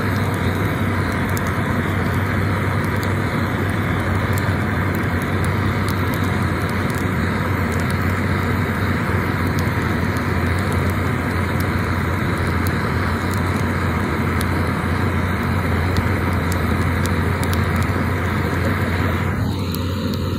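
Handheld gas torch burning into a wood fire in a steel fire pit, a steady rushing flame noise with faint crackles from the logs. Just before the end it gives way to a different steady background noise.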